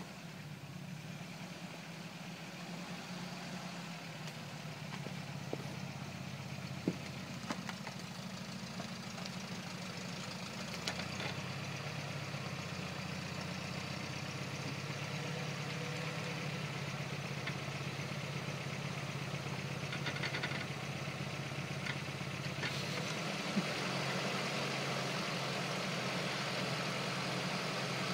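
Lifted Toyota pickup's engine running at low revs as it crawls over logs and roots, slowly getting louder as it comes closer. A few sharp knocks stand out above the engine.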